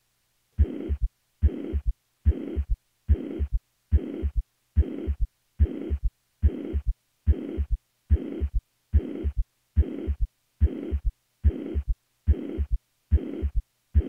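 Heart sounds through a stethoscope at the cardiac apex, beating regularly at a little over one beat a second. Each beat has a first heart sound, a uniform, relatively high-pitched holosystolic murmur, then the second heart sound followed closely by a lower-pitched extra sound in early diastole, an S3.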